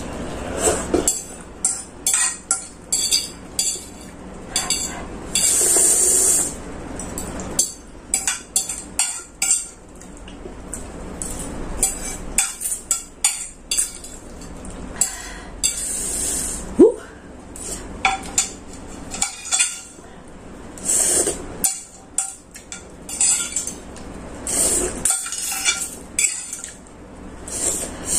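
Metal fork clinking and scraping on a ceramic plate as noodles are picked up and eaten, in many short irregular clinks, with a few longer hissing sounds in between.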